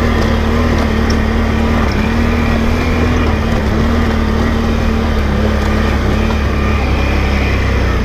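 ATV engine running steadily at cruising speed as the quad rides along the trail. The note holds nearly constant, with small rises and falls in pitch.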